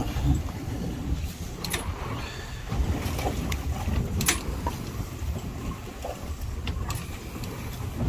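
Low rumble of wind and boat noise on the microphone, with a few short sharp clicks from hands and tools handling the bird, the loudest about four seconds in.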